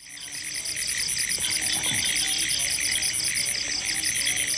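Frogs and insects calling together: a high insect trill pulsing about eight times a second over a steady high buzz and a dense chorus, with short lower frog calls scattered through it. It fades in over the first half-second.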